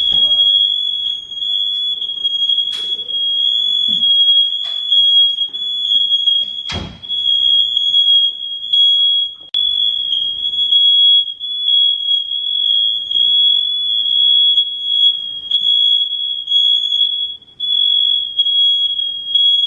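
Hardwired, interlinked smoke alarms sounding together in one continuous high-pitched shriek; the owners put it down to expired batteries setting one unit off and it triggering the rest. A sharp knock cuts across it about seven seconds in.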